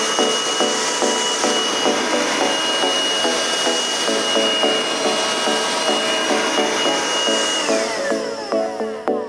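Vacuum cleaner motor running with a steady high whine and airy rush, then winding down near the end as it is switched off.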